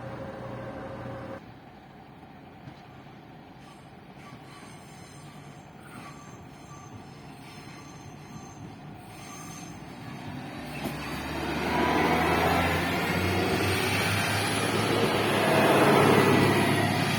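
ZSSK class 861 train approaching: faint at first, then its engine and running noise build from about two-thirds of the way in and are loudest near the end. A steady hum cuts off suddenly about a second in.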